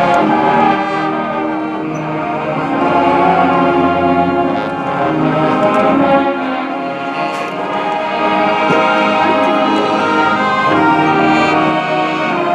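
High school marching band playing, brass and woodwinds sounding held chords that shift every second or two.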